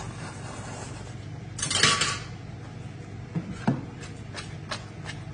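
Metal tongs clicking and clattering against a stainless steel pan of spaghetti in carbonara sauce as the pasta is tossed, with a short hiss-like burst about two seconds in and a run of sharp clicks in the last couple of seconds.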